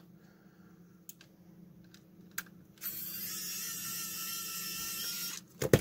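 Pen-style electric precision screwdriver running for about two and a half seconds with a steady whine, backing out a tight screw. A few faint clicks come before it.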